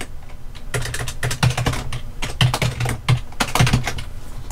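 Typing on a computer keyboard: a rapid, irregular run of keystrokes with short pauses between bursts.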